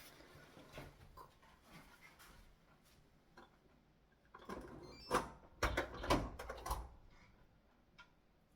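Close-miked sounds of someone eating ramen: faint clicks at first, then a louder run of mouth and utensil noises from about four and a half to seven seconds in.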